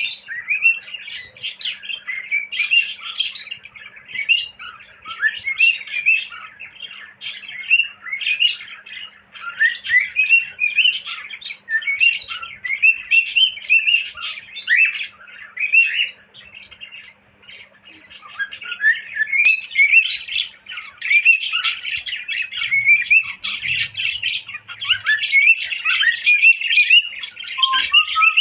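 Cockatiel chirping and whistling in a near-continuous stream of short, mostly rising notes, with a short lull a little past halfway.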